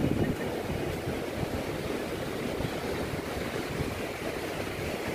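Steady rushing noise of sea surf and wind on a beach, with wind buffeting the microphone.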